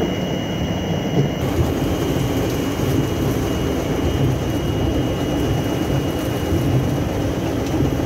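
Mavitec depackaging machine running at full tilt while separating packaged pastries: a loud, steady mechanical rumble with a constant high whine over it.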